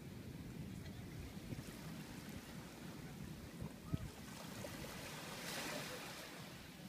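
Beach ambience: wind noise on the microphone over faint surf, with a louder rush of hiss about five and a half seconds in and a single sharp tap near four seconds.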